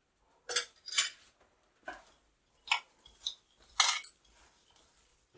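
A spoon scraping and knocking against a bowl in about six short, irregular strokes, mixing a spiced mashed-potato filling.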